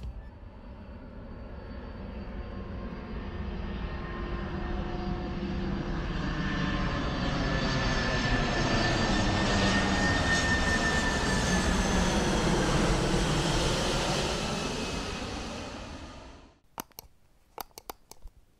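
Jet airliner's engines passing low overhead: a rushing roar with a high whine and gliding tones, growing louder and then easing before it cuts off suddenly. A few sharp clicks near the end.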